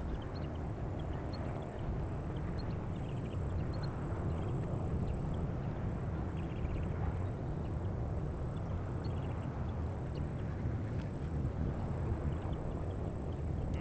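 Outdoor ambience: a steady low rumble with faint short high chirps scattered through it.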